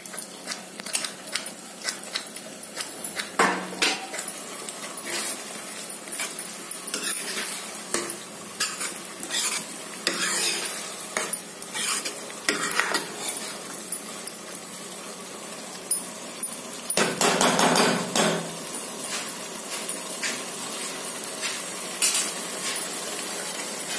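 A spoon stirring thick tomato-onion gravy with peas and paneer in a kadai, with repeated clicks and scrapes of the spoon against the pan over a faint sizzle of the simmering masala. About seventeen seconds in, a denser, louder stretch of scraping lasts a second or two.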